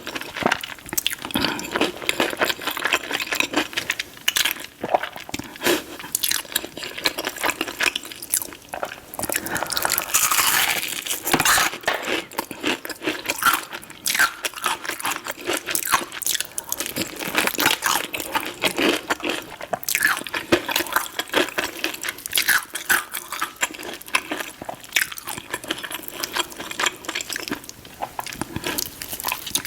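Close-miked eating of crispy fried chicken: many irregular crunching bites and chewing clicks in quick succession.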